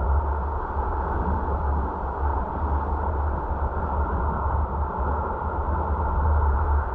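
Steady road noise of a car being driven, heard from inside the cabin: a deep, constant rumble with a faint steady whine above it.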